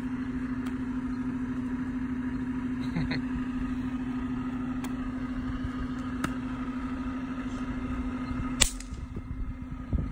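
Snap pops (bang snaps) thrown down onto asphalt, cracking one at a time: about five sharp cracks spread out, the loudest near the end. Under them runs a steady low mechanical drone.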